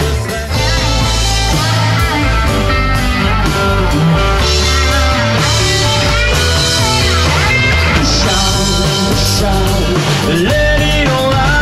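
Live rock band playing: electric guitar, bass guitar, drum kit and keyboard, loud and continuous.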